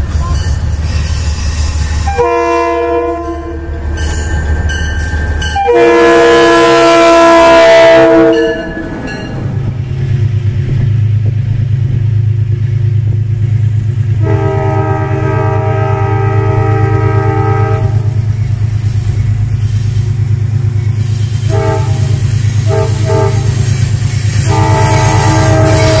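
Metro-North GE Genesis diesel locomotive's multi-chime air horn sounding a series of blasts, long ones and a few short ones, the loudest about a quarter of the way in. Under the later blasts its diesel engine runs with a steady low drone as the train comes by.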